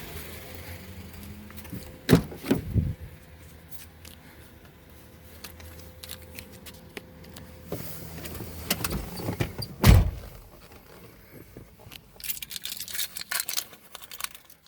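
A few knocks about two seconds in and a single loud thump about ten seconds in, over a faint low hum. A quick run of small clicks and rattles follows near the end: handling and shutting parts of a car.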